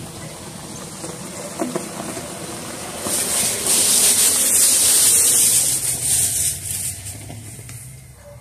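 Suzuki Forenza sedan driving slowly along a gravel driveway: its four-cylinder engine running and its tyres hissing on the gravel. Loudest about three to six seconds in as it comes closest, then fading away.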